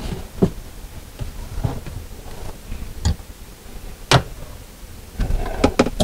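Scattered clicks and knocks as a Waste King garbage disposal is turned and worked loose from its sink mounting ring, with one sharp click about four seconds in and a cluster of knocks near the end.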